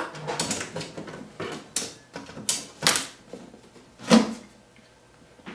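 A screwdriver and screws clicking and knocking against a television's plastic back cover while it is unscrewed: a handful of irregular sharp clicks, the loudest about four seconds in.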